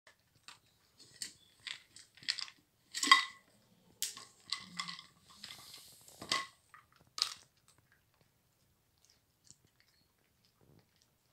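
A dog eating dry kibble out of plastic cups: irregular knocks and clatter as the cups are nosed and tipped over, with chewing. The loudest knock comes about three seconds in, and the clatter dies down after about seven seconds.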